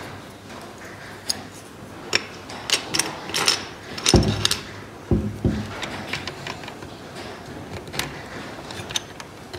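Small wooden toy parts being handled: scattered light clicks and taps, with a few heavier knocks about four to five and a half seconds in.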